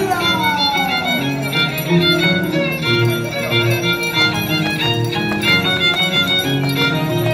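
Live chimaycha folk music from Ayacucho played for dancing, led by a violin playing a quick melody over a steady rhythmic beat.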